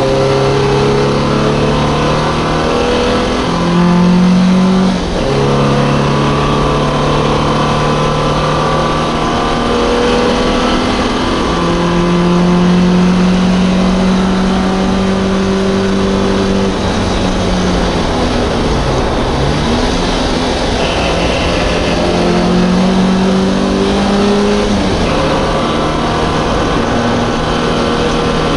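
MGB race car's 1.8-litre B-series four-cylinder engine working hard at racing revs, heard from inside the car. Its pitch steps up and down with gear changes and throttle, dipping low a little past halfway and then climbing again.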